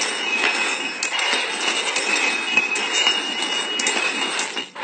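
Three stainless steel cups being slid and shuffled quickly across a wooden tabletop: a continuous scraping rattle with small clinks as the metal cups knock together, with a faint metallic ring running through it.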